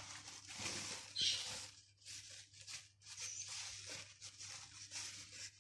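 Paper kitchen towel rustling and rubbing over sausages on a plate as they are patted dry, in several faint scratchy stretches.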